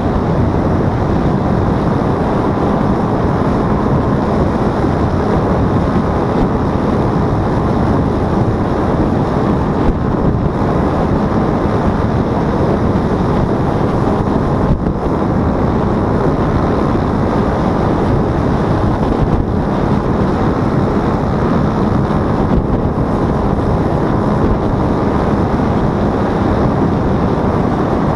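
Paramotor engine and propeller running steadily in flight, mixed with wind rushing over the microphone.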